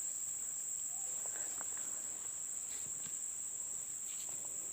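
Steady high-pitched insect chorus, one unbroken shrill tone, with a few faint small ticks over it.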